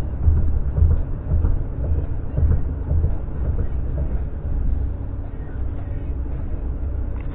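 Car road noise heard from inside the cabin: a low rumble of tyres on the road, with irregular thumps as the wheels cross bumps and cracks in the pavement, settling into a smoother rumble after about four seconds.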